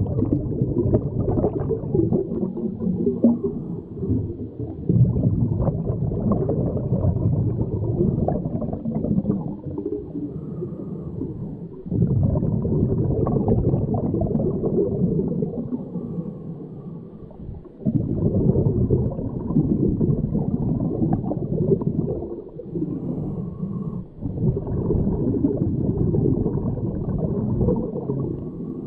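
Muffled underwater sound of a scuba diver breathing through a regulator, with exhaled bubbles gurgling. It comes in surges several seconds long with brief lulls between them.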